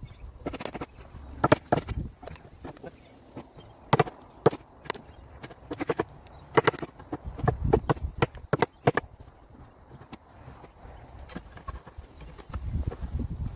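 Mallet striking a chisel in irregular sharp knocks, the chisel splitting bark off a green pecan slab. Near the end, a rougher scraping as a drawknife is pulled along the slab's edge.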